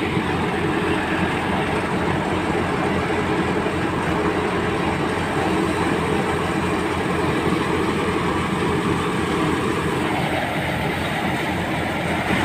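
Belt-driven crop thresher powered by a Massey Ferguson 385 tractor, running steadily: a constant drone with a dense, fast rattle from the drum and belts.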